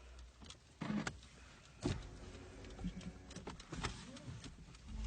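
Quiet low rumble inside a car, with a few short knocks and thumps.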